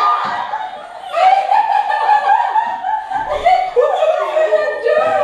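Audience laughing, several voices overlapping.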